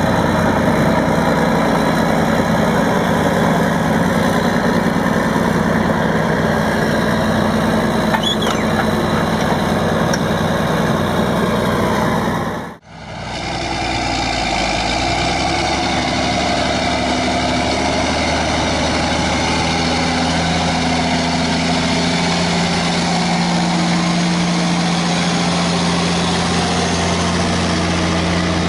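Heavy diesel engines of harvest machinery running steadily, cut abruptly about thirteen seconds in to a second, different engine sound.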